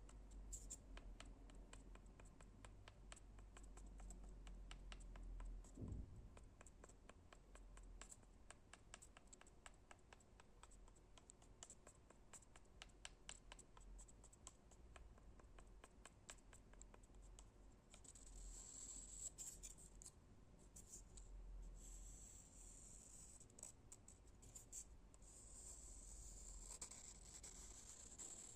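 Faint, close ASMR tapping and scratching on wood: a quick, dense run of light taps for most of the first two-thirds, then a softer, hissy scratching and rubbing on the wood surface.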